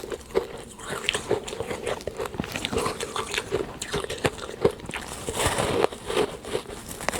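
Someone biting and chewing powdery freezer frost: quick, irregular crunches, denser about three-quarters of the way in.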